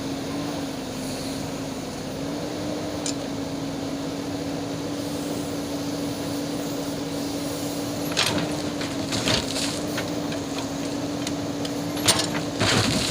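Diesel engine of a JCB backhoe loader running at a steady speed, with a few sharp knocks and clattering in the second half.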